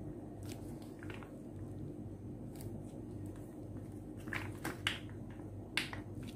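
Mayonnaise squeezed from a squeeze bottle onto burger fillings: a few short squelches and clicks, mostly in the second half, the last two the loudest. A steady low hum underneath.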